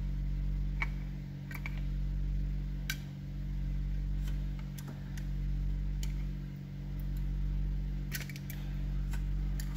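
Small sharp plastic clicks and taps, a dozen or so at uneven intervals, as a handheld two-way radio's circuit board is worked loose from its plastic housing, over a steady low electrical hum that swells and fades about every two seconds.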